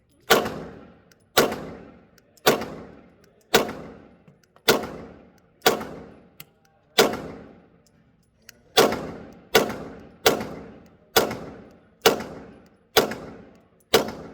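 Glock 47X 9mm pistol being fired in slow, steady single shots, about one a second, fourteen in all, each shot trailing off in a short echo. The rhythm breaks with a longer pause around the middle before the shots resume slightly faster.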